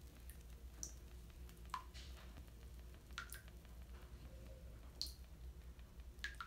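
Faint, scattered watery plinks and pops, about half a dozen at irregular intervals, as a bath bomb fizzes in bath water, over a low steady hum.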